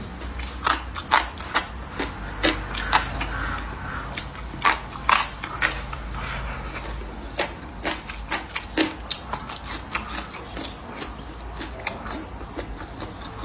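A person eating with chopsticks close to the microphone: chewing and wet mouth smacks, heard as irregular sharp clicks, one or two a second, over a low steady hum.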